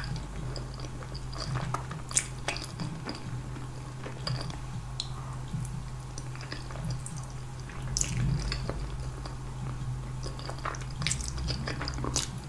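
Close-miked eating of spaghetti in tomato sauce: wet chewing and slurping of noodles, with irregular sharp mouth clicks and smacks, over a steady low hum.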